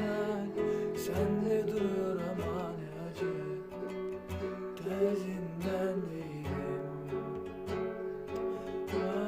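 Music: an acoustic guitar playing a slow song, with low notes pulsing at a steady pace underneath.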